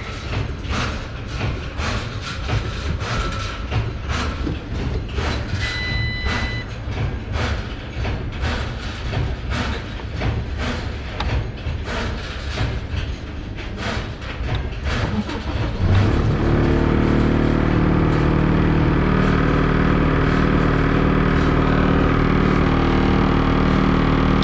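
Skid steer's diesel engine starting about 16 seconds in and then idling steadily, after the machine has been shut off so its control unit could power down. Before that, irregular clicks and knocks over a low rumble, with a short beep about six seconds in.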